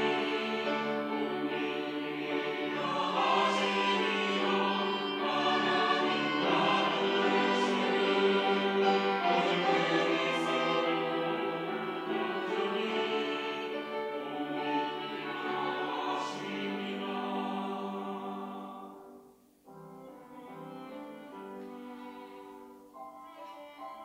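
Mixed church choir singing a slow anthem with instrumental accompaniment. About nineteen seconds in the singing stops and a quieter instrumental passage carries on.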